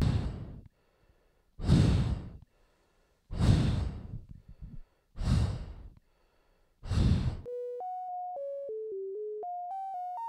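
Heavy breathing through a gas mask respirator: five separate breaths about every second and a half, with silence between. About three-quarters of the way in, a simple electronic melody of single stepping notes takes over.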